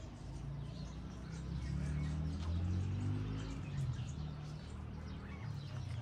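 Birds calling: low, held cooing notes that shift in pitch, loudest about halfway through, with faint high chirps.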